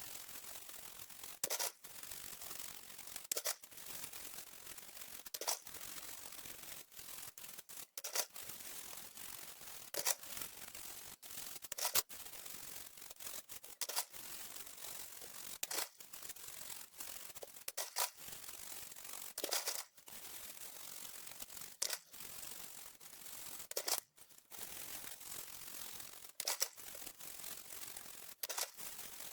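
Hands working on a keyboard's plastic parts: irregular sharp clicks every second or two over a steady hiss of rubbing or brushing.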